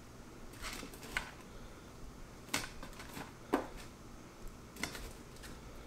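Light handling noise as a nitrile-gloved hand picks pieces of butter from a metal bowl and drops them onto chicken thighs in an aluminium foil pan. There are about six scattered soft clicks and taps, the loudest about three and a half seconds in.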